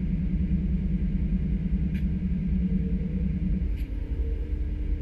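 Amtrak diesel locomotives idling with a steady low rumble. A droning hum stops about three-quarters of the way through, and two light clicks come about two seconds apart.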